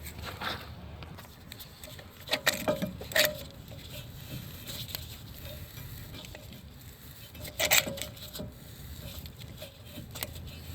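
Short bursts of metal clicking and clatter from brake tools being handled and fitted at the rear brake caliper, in three brief clusters, over a low steady rumble of wind on the microphone.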